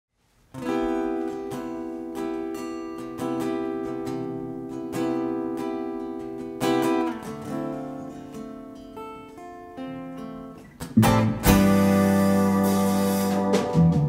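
Acoustic guitar playing a song intro: ringing chords struck at an even pace, then softer single picked notes. About eleven seconds in, the playing turns to louder strummed chords with strong low notes.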